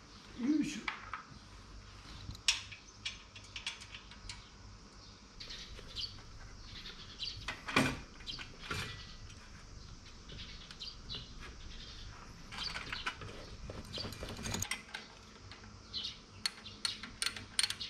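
Metal clinks and knocks of a motorcycle muffler being fitted to its exhaust and mounting by hand, with a sharper knock about eight seconds in and a run of quick clicks near the end.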